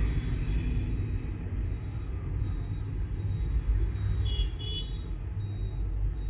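Low, steady background rumble, with a brief faint high tone about four seconds in.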